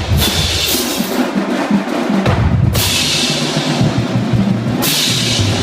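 Marching drum line playing a dense cadence: snare drums and bass drums, with cymbal crashes every second or two.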